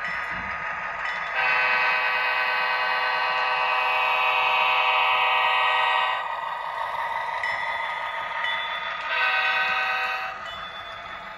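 Sound decoder of a Walthers HO-scale CSX Dash 8-40B model locomotive playing its GE diesel engine sound, with the horn sounding one long blast of nearly five seconds from about a second in and a short blast near the end.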